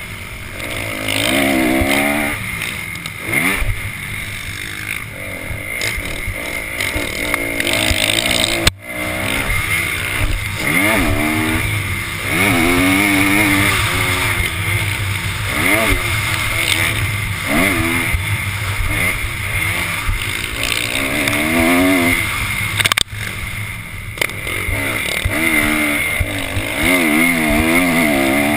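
Motocross dirt bike engine heard from onboard, revving up and dropping again and again as the rider works the throttle and gears around the track. Two brief sudden dips in the sound come about nine seconds and about twenty-three seconds in.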